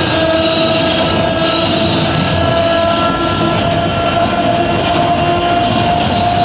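Narrow-gauge electric railcar of the Sangi Railway Hokusei Line running along the track: a steady rumbling running noise with several high, steady whining tones over it.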